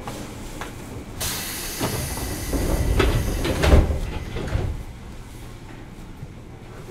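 205-series commuter train's pneumatic doors opening at a stop: a sudden hiss of air about a second in that lasts a couple of seconds, with knocks and a heavy thud near its end as the doors slide open.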